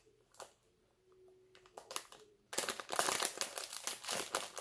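Plastic candy bag crinkling in the hands, a few light rustles at first, then from about halfway in a dense, loud crinkling as the bag is pulled and torn open.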